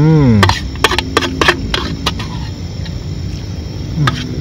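A spoon clinking and scraping on a metal camping plate while eating: a quick run of sharp clinks about half a second to two seconds in. A brief falling vocal sound from the eater comes at the start.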